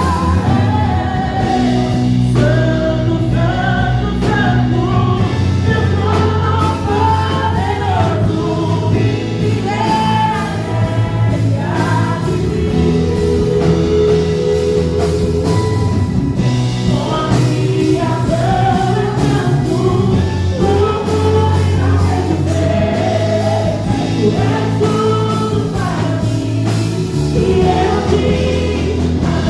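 Live gospel worship music: voices singing a melody together over a band with a steady beat and bass.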